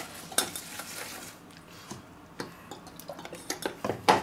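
Sliced apples being tossed by hand in a stainless steel bowl to coat them with lemon juice: slices scraping and knocking against the metal, with a few sharper knocks near the end.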